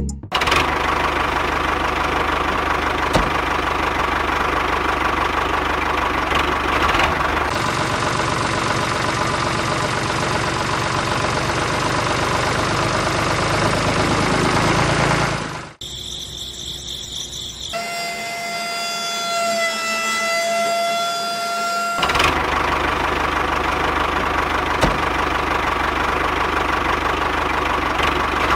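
Miniature homemade toy tractor running steadily with an engine-like hum and fast, even pulsing, broken by a couple of abrupt cuts. For a few seconds past the middle a steady high whine sounds over it.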